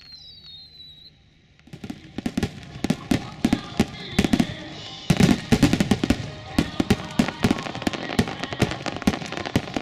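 Fireworks display: two faint falling whistles at first, then from about two seconds in a rapid barrage of aerial shell bursts and launches, several sharp bangs a second, loudest about midway.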